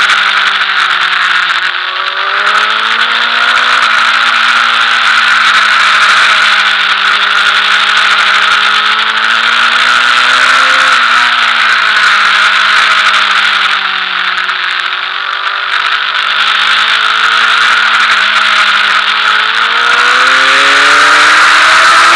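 Sport motorcycle engine running hard at high revs, with heavy wind rush over the microphone. The revs drop as the bike slows about 2 s in and again around 15 s in, then climb steadily near the end as it accelerates.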